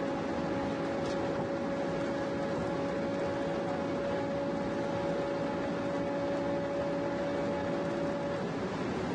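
Cabin noise inside a BMW sedan at about 310–325 km/h: a steady rush of wind and road noise with a steady engine tone under it, which fades out near the end.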